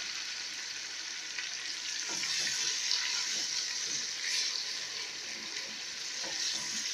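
Ginger-garlic paste frying in hot oil with onions and green chillies in a pot: a steady sizzle, with faint sounds of stirring now and then.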